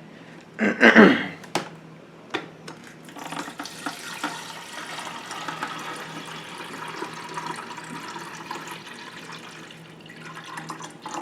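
Water pouring from a Brita filter pitcher into the Keurig coffee maker's plastic water reservoir: a steady splashing stream that starts about three seconds in, runs for about seven seconds and tapers off near the end.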